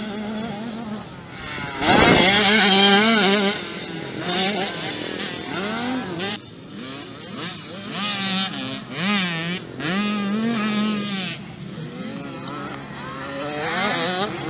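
Small youth motocross bikes racing on a dirt track, their engines revving up and down as the riders work the throttle through the turns. The loudest pass comes about two seconds in, when a bike goes close by.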